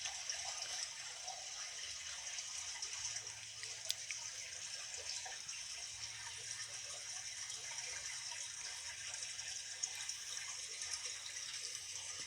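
Steady rush of running water with a few faint drips and clicks.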